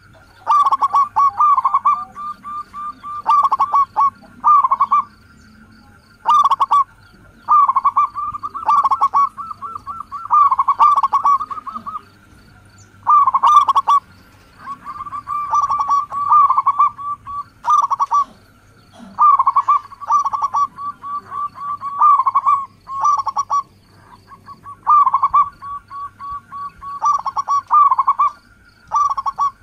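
Zebra dove (local perkutut) song: phrases of rapid, stuttering coos, one after another with short gaps between them.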